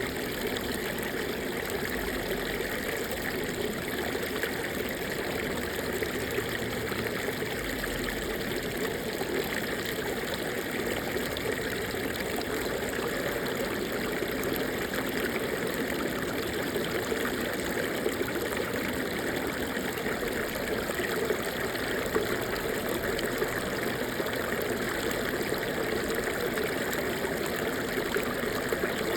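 Small stream running, a steady babble and trickle of water over rocks.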